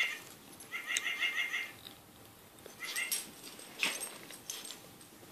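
Squeaky plush dog toy giving quick runs of high, evenly spaced chirps as a small dog bites and shakes it: a run about a second long, then a short one. A few sharp clicks follow.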